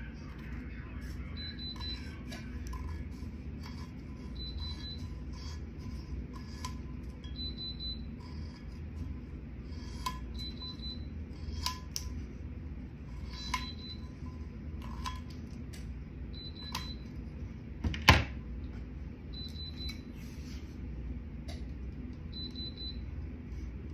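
A tumbler heat press beeping, one short high beep about every three seconds, signalling that it is hot and ready, over a low steady hum. Light clicks and rustles of paper and tape being handled on a tumbler, with one sharp knock, the loudest sound, about three-quarters of the way through.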